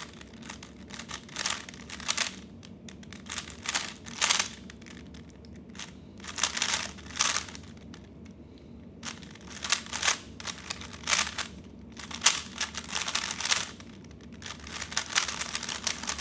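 Plastic 3x3 Rubik's speed cube being turned rapidly during a timed solve: bursts of quick clicking, clacking turns separated by short pauses.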